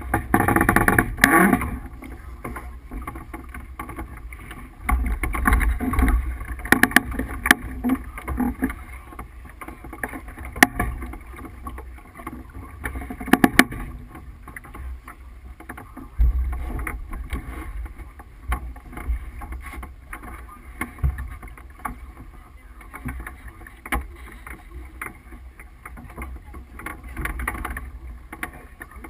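Tripp 37 sailboat under way under sail: a gusty low rumble of wind on the microphone with the noise of the boat moving through the water, broken by a few sharp knocks.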